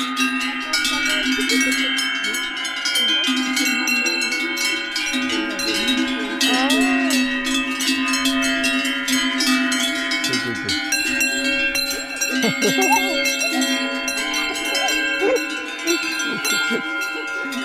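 Many metal bells clanking and ringing continuously, several at once in an uneven jangle, with a few short voice-like calls in between.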